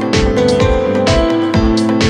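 Background music with sustained instrumental notes over a steady beat.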